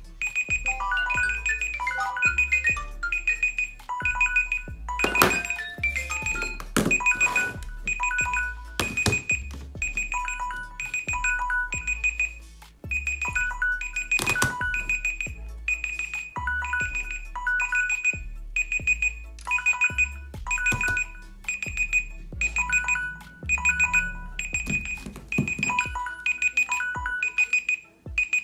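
Electronic music with a steady bass beat and short, repeated high beeping notes, the same pattern throughout, with a few sharp knocks partway through.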